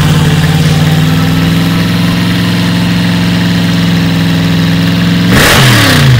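Hot rod coupe's exposed V8 running at a steady idle through open side exhaust pipes, then revved once near the end, the pitch climbing sharply and dropping back.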